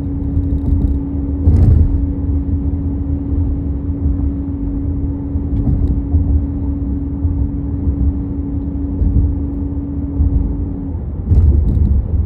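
Acura car driving, with a steady low road rumble and a constant hum over it that cuts off about eleven seconds in. Two louder bumps come through, about a second and a half in and again near the end.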